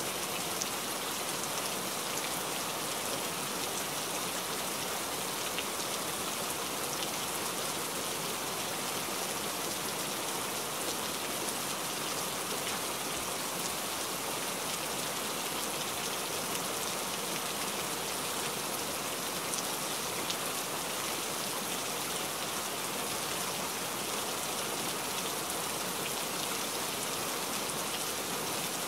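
Steady rain falling on dense tropical foliage: an even hiss with scattered drop ticks on the leaves.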